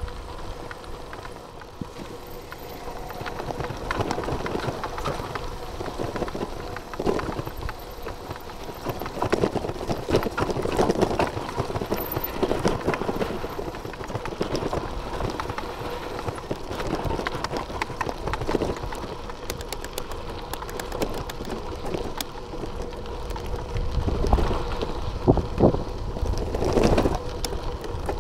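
Bicycle riding over a rough gravel track: tyres crunching on loose stones and the bike rattling, with many irregular knocks and clatters.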